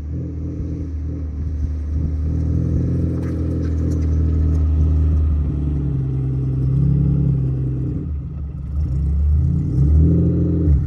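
Small hatchback car's engine running as the car drives along a dirt track, its pitch rising and falling a few times as it revs.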